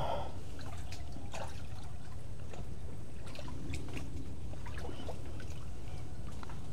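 Slow wading steps through shallow water in rubber boots: soft sloshing and trickling with scattered small clicks, over a steady low rumble.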